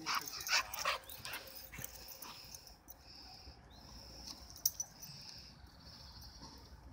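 American Staffordshire terrier breathing and sniffing close by, with a few louder huffs in the first second as it runs up, then quieter sniffing as it noses at the ground. A sharp click comes about halfway through.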